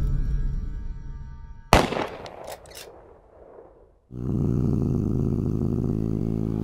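Film sound effects: a low rumble fades, then a sudden loud hit that rings on, followed by a few sharp clicks. After a moment of near quiet, a steady low drone sets in abruptly about four seconds in.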